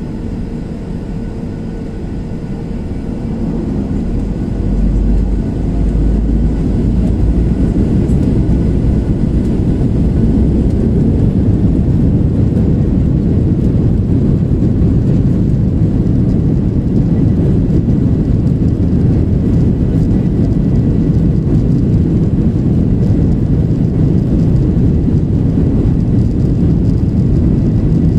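Boeing 737-800's CFM56-7B turbofan engines spooling up to takeoff thrust, heard from inside the cabin. A deep rumble swells over the first several seconds, then holds loud and steady through the takeoff roll down the runway.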